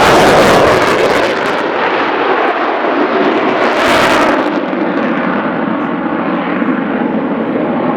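Loud jet noise from an F-35A Lightning II's single turbofan engine during a display flight, swelling strongly about four seconds in, then settling into a steadier, duller noise with a faint steady hum in it.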